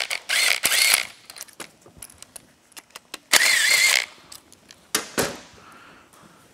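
Cordless power ratchet running bolts out of an engine: two short runs of motor whine, one in the first second and a slightly shorter one about three and a half seconds in. A couple of sharp metallic knocks follow near the five-second mark.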